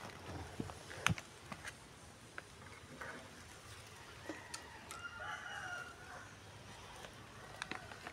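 A rooster crowing once, about five seconds in, over sharp crinkles and rustles of a plastic sheet being handled.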